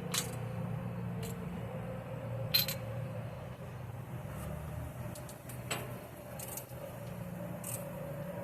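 Scattered metallic clinks of hand tools on bolts as exhaust fasteners are snugged up, five or six separate clicks with the sharpest about two and a half seconds in, over a steady low hum.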